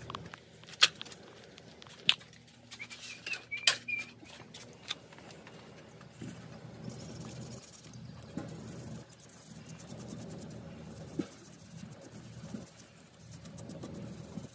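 A few sharp metal clicks from hand tools and parts, then an uneven rubbing and scraping as the starter solenoid's wire terminals are cleaned by hand.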